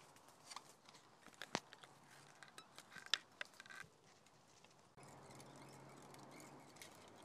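Near silence with faint, scattered clicks and crackles, the sharpest about a second and a half in and a small cluster around three seconds; a faint steady hiss sets in near the end.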